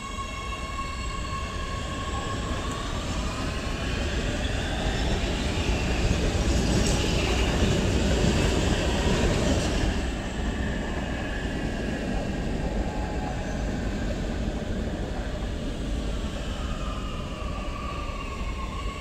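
Oslo metro MX3000 train pulling into the platform and stopping, with electric motor whine gliding in pitch over rumbling wheels. The noise is loudest as the cars pass about six to ten seconds in. Near the end the whine slides down and settles into steady tones as the train halts.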